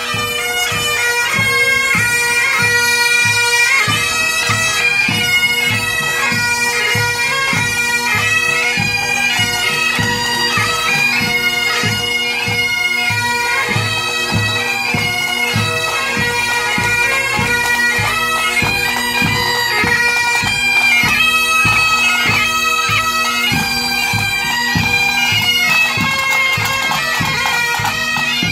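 Pipe band playing a march: Great Highland bagpipes with their steady drones under the chanter melody, and drums beating a steady rhythm beneath.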